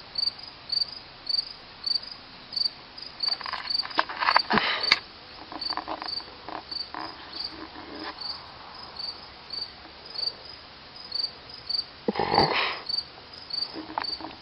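A cricket chirping steadily in short, high, evenly spaced chirps, about three a second. Two louder, rustling bursts of noise come through, one about four seconds in and one near the end.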